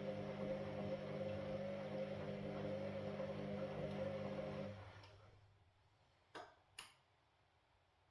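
Washing machine motor running with a steady hum. It winds down and stops about five seconds in. A pause follows, with two sharp clicks close together, as the drum rests between turns of the wash cycle.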